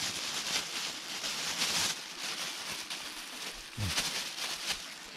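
Thin plastic bag crinkling and rustling in irregular bursts as raw pork pieces are shaken out of it into a bowl.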